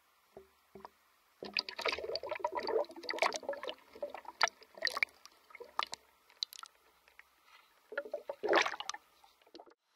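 Water sloshing and gurgling around a submerged camera as a diver swims just below the surface, heard muffled and crackly through the water. Irregular splashy bursts fill the first half, with a last burst near the end.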